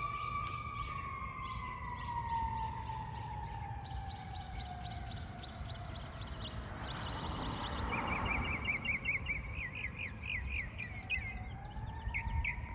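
Emergency-vehicle siren in a slow wail: the tone holds, falls slowly over several seconds, then rises again near the end. Birds chirp in quick repeated series over it partway through.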